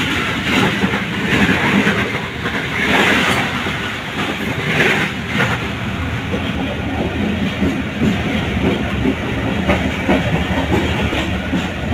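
A passenger train running along the track, its wheels rumbling and clattering steadily on the rails.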